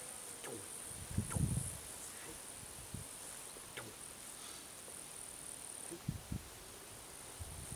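Insects chirring in a meadow: a steady, high-pitched drone that weakens about six seconds in. A couple of soft thumps and rustles come about a second in and again about six seconds in.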